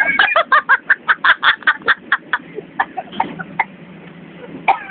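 Laughter: a quick run of short cackling ha-ha bursts, about five or six a second, that tails off after about two and a half seconds, with a fresh burst of laughter near the end.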